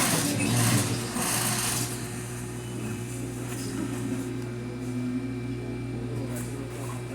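Sewing machine stitching in two short runs in the first two seconds, then a steady low motor hum.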